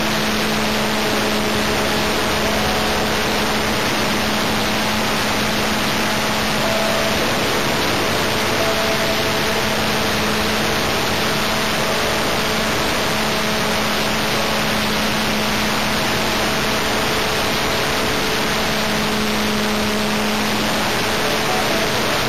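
O.S. Max .25 LA two-stroke glow (nitro) model engine running steadily at high speed in flight, heard through an onboard camera microphone with heavy wind rush over the airframe.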